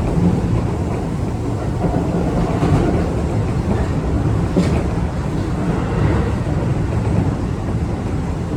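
Keio 8000-series commuter train running, heard from inside motor car DeHa 8029: a steady rumble of wheels on rail, with a couple of sharp clicks partway through.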